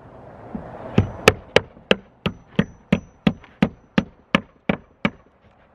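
Claw hammer driving a nail into wooden roof decking: about a dozen sharp blows, roughly three a second, starting about a second in, each with a faint metallic ring.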